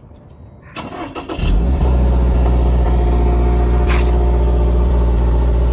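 Toyota GR86's 2.4-litre flat-four engine cranking briefly and catching about a second and a half in, then running at a loud, steady idle.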